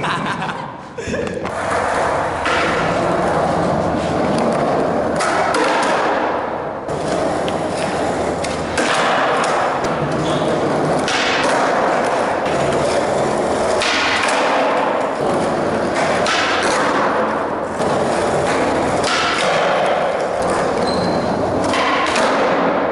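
Skateboard wheels rolling on a concrete floor, with several thuds and slaps as flatground tricks are popped and landed.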